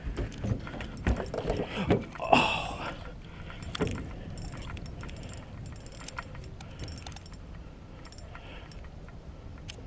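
Knocks and clunks on an aluminium boat during the first few seconds, then fine metallic clicking from a spinning reel as a hooked fish is played on the line.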